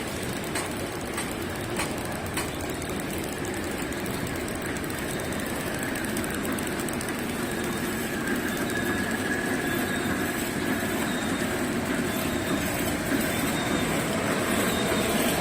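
Horizontal flow-pack wrapping machine with a heat-shrink unit running steadily, a continuous mechanical rumble with a faint whine and a few sharp clicks near the start.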